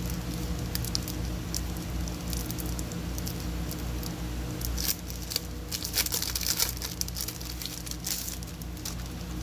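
Crinkling and rustling of plastic packaging and paper as a pack of tab dividers is opened and handled, with a busier run of crinkles about five to seven seconds in, over a steady low hum.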